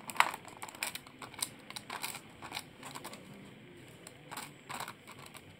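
Irregular light clicks and rattles of small screws and parts being picked through in a search for a short screw, with a sharper click just after the start.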